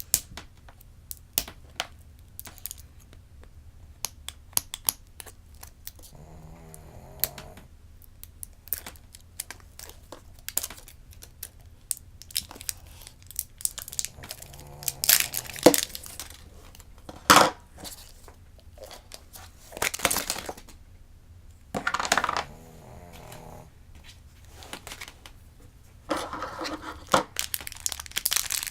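Shopkins toy packaging being opened by hand: plastic crinkling and tearing, with many small sharp clicks and several louder rustling bursts.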